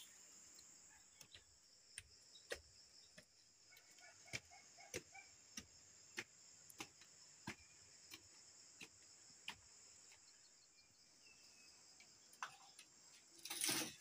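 Faint steady high-pitched chirring of insects, with a series of short sharp clicks about once every half second to a second.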